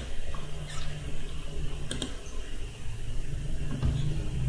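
Computer mouse clicks as line points are placed in a CAD sketch: a sharp click at the start and another about two seconds in, with a fainter one between. Under them runs a steady low hum.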